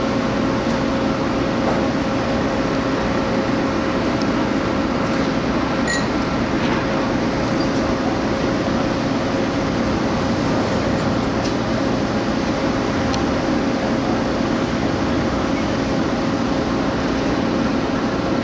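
Heavy ship's machinery running steadily: a constant droning hum with a steady mid-pitched tone, from the ship's crane plant as it handles the lifted railcar.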